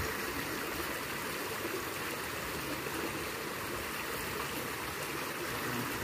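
Small stream rushing steadily as it spills over a shallow drop, a constant even wash of water.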